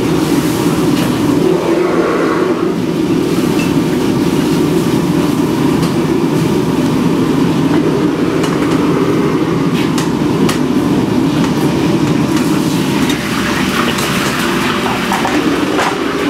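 Steady, loud roar of a commercial kitchen's burners and ventilation, with a couple of light clinks from a serving spoon on a plate about ten seconds in.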